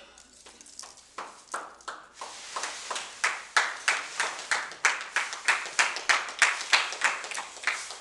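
Broom sweeping dry leaves, soil and paper across a hard floor in quick, regular strokes, about three a second, growing louder over the first few seconds.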